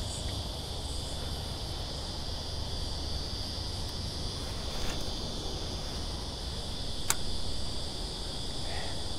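A steady, high-pitched chorus of insects, with a low rumble underneath and one sharp click about seven seconds in.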